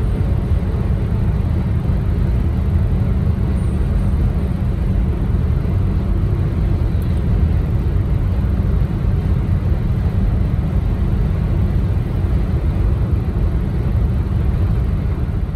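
Steady low road rumble inside a car cabin at highway speed, tyre and engine noise with no changes.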